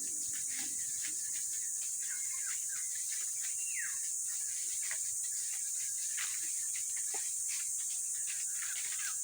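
Steady high-pitched chorus of insects, with many short clicks scattered through it and a few bird chirps, one of them a clear falling chirp about four seconds in.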